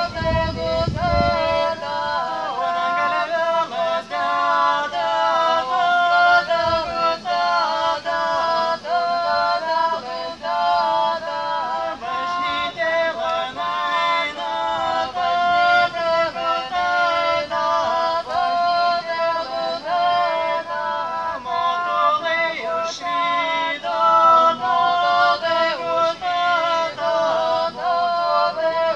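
A folk ensemble singing a Lithuanian sutartinė a cappella, a trejinė (three-part round) from the Ignalina area. Several unaccompanied voices sing close, overlapping lines in a steady, repeating pattern.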